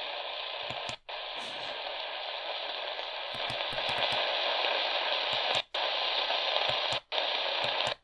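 AM static hissing from the small speaker of a Midland ER10VP portable radio as it is stepped up the AM band between stations. The audio cuts out completely for a moment three times as the tuner changes frequency.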